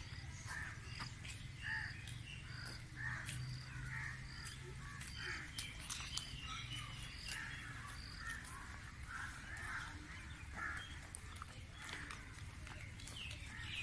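Birds calling, many short calls one after another, over a low steady rumble.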